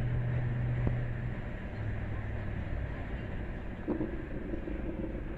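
Steady road noise of a car driving on a snowy highway, heard from inside the cabin: a hiss of tyres with a low engine hum that drops slightly in pitch about a second and a half in.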